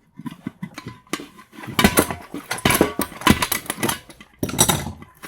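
Hand tools working a part off a brass light fixture: irregular metal knocks, clinks and short scraping bursts.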